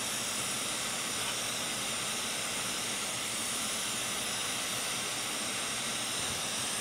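Steady hiss of a hot air rework station blowing on a small surface-mount chip while the solder under it melts and the chip settles onto its pads.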